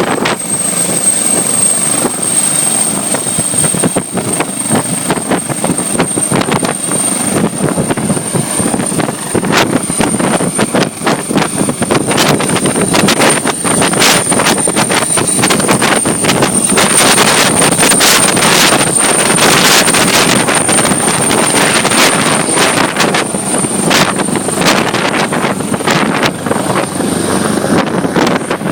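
Helicopter running for takeoff: loud rotor noise with a steady high-pitched whine over it.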